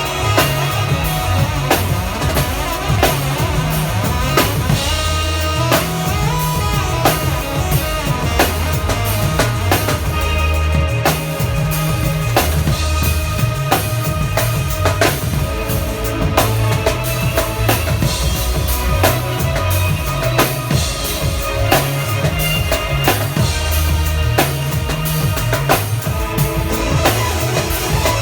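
Band music with a steady drum-kit beat and bass line under the keyboard parts of the PianoArc, a wrap-around 360-degree keyboard.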